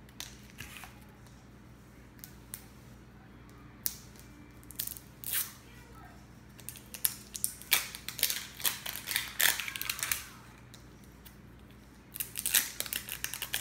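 Plastic wrapping of a small L.O.L. Surprise Lil Sisters doll ball being crinkled, peeled and torn open by hand, in scattered crackles and clicks that come thickest in the second half.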